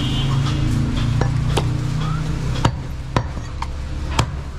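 Heavy butcher's knife chopping goat meat and rib bone on a wooden log block: a string of sharp blows roughly every half second, over a steady low background hum.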